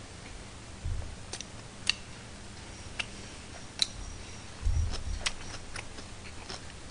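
Chopsticks clicking against each other and a plastic lunchbox tray while picking up food: several irregular sharp clicks, with a couple of soft low bumps.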